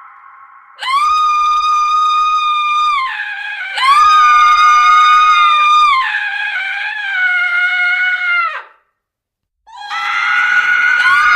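Women screaming in a horror sound effect: a run of long, high-pitched, steadily held screams, each a couple of seconds, some overlapping. They stop briefly about nine seconds in, then another scream starts.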